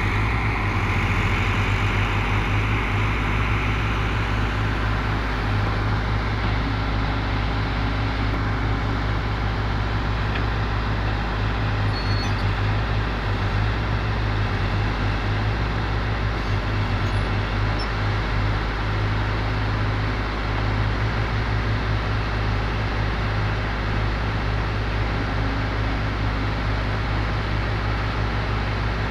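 Heavy diesel machinery engine running steadily, with a constant deep hum.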